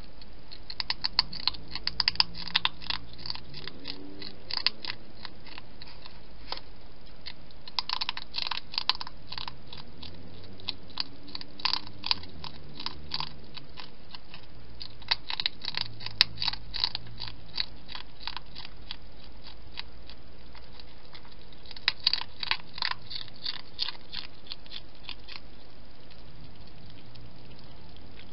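Hedgehog chewing and crunching food at a feeding bowl, in several bouts of rapid crunching with short pauses between.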